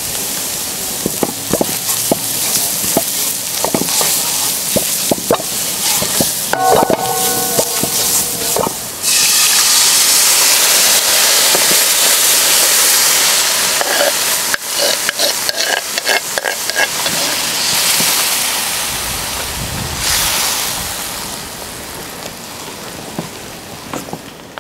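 Grated carrot and onion frying in oil in a cast-iron pan, with a spoon scraping and clinking against the pan. About nine seconds in, the sizzle jumps suddenly loud as tomato sauce goes into the hot pan, then dies down slowly near the end while it is stirred.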